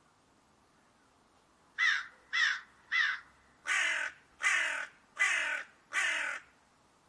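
Crow cawing seven times, starting about two seconds in: three short caws in quick succession, then four longer caws.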